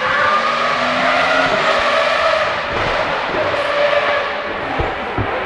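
Rally car engine running hard at high revs, its pitch rising and falling, fading somewhat near the end.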